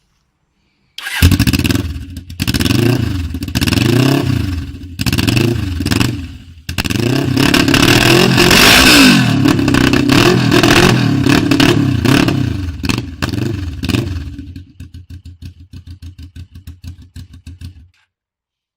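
Suzuki GS 500 E carbureted parallel-twin engine running on its exhaust pipe with the end silencer removed, very loud. It starts suddenly about a second in and is revved up and down again and again, then drops to a lumpy idle pulsing about four times a second, which stops near the end.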